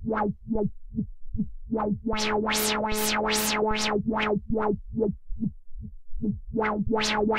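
Behringer 2600 synthesizer holding one steady low note through its filter, with the cutoff swept up and down by a triangle LFO about two and a half times a second in a rhythmic wah. The sweeps open much brighter in the middle and again near the end, and close down darker in between, as the filter's base voltage is raised and lowered while the modulation depth stays the same.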